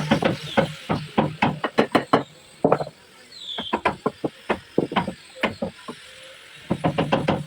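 Hammering on wood: quick, irregular blows several a second, in runs with a short pause about three seconds in and a quieter stretch shortly before the end.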